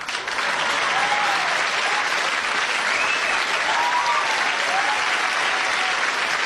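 Studio audience applauding steadily, the applause starting abruptly and holding at an even level, with a few faint voices calling out through it.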